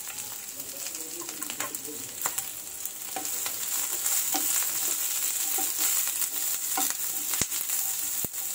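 Chopped onion, capsicum and green chillies sizzling in oil in a nonstick frying pan while a wooden spatula stirs them, with many short clicks and scrapes of the spatula against the pan. The sizzle grows louder about three and a half seconds in.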